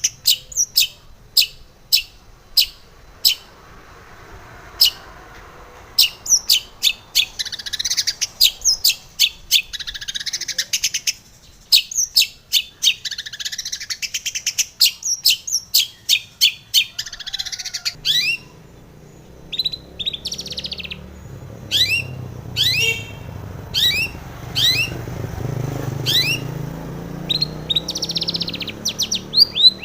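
Long-tailed shrike (cendet) calling in rapid runs of sharp, high chirps with short pauses between the runs. A low steady hum comes in a little past halfway.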